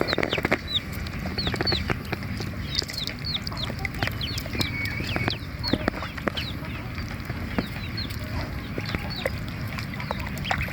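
A brood of young ducklings peeping: many short, high calls that drop quickly in pitch, several a second, thinning out in the second half. A steady low hum runs underneath.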